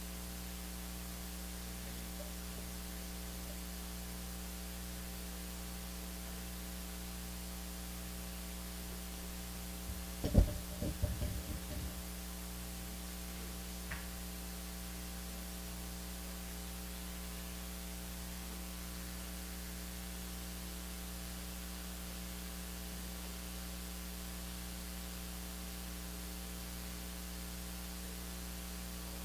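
Steady electrical mains hum with a faint pulsing buzz. About ten seconds in, a short cluster of dull low thumps, the first much the loudest, and a faint click a few seconds later.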